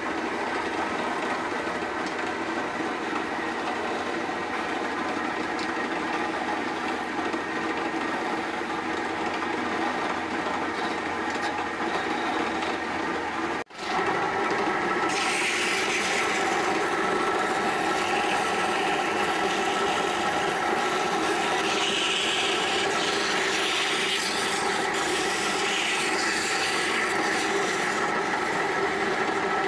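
Wood lathe motor running with a steady hum while a hand chisel scrapes and cuts a spinning wooden finial. After a brief break about halfway through, sandpaper is pressed against the spinning wood, adding a louder, higher hiss.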